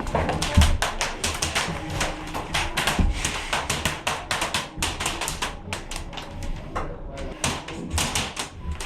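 Airsoft guns firing, many sharp shots in quick irregular strings, with a brief lull about seven seconds in.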